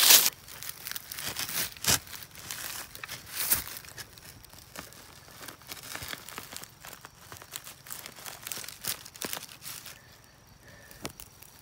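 Dry leaf litter and grass rustling and crackling as they are handled close to the microphone. A loud rustle comes at the start, then scattered crackles that thin out toward the end.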